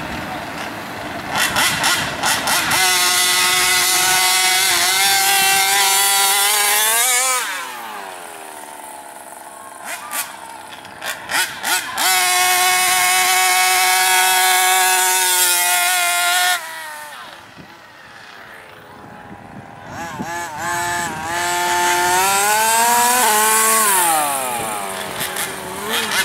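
Small two-stroke engine of a 1/5-scale gas RC car, blipped in short revs and then held at full throttle for several seconds before falling away, three times over.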